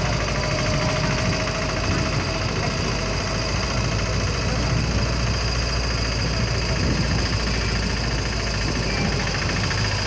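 Vehicle engines running steadily with slow-moving traffic noise.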